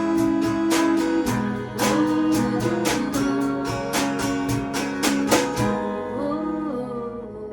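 Acoustic guitar strummed in a steady rhythm with long held notes over it, the closing bars of an indie-folk song; the strumming stops about six seconds in and the last notes ring out and fade.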